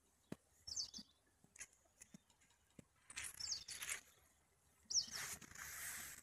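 Faint outdoor sound: a small bird giving short, falling chirps about a second in and again near three and five seconds, with two longer bursts of hissing noise in the second half.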